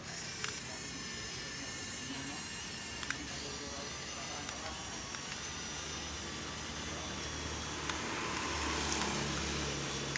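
Small electric motors of a toy remote-control excavator whirring steadily, with a few sharp clicks, growing louder near the end.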